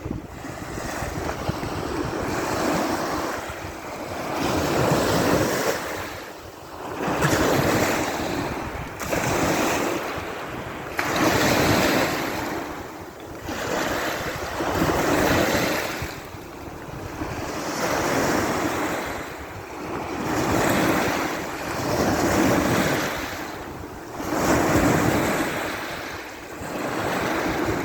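Sea of Azov waves washing onto the shore, the surf swelling and falling away every couple of seconds.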